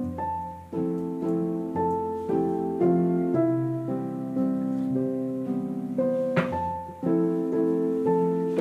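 Background piano music, chords and a melody moving note by note, with a new note about every half second. A short tap sounds once, about six seconds in.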